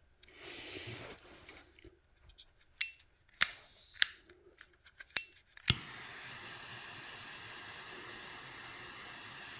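Butane micro torch: about five sharp clicks of its igniter, then the flame catches near the six-second mark and hisses steadily.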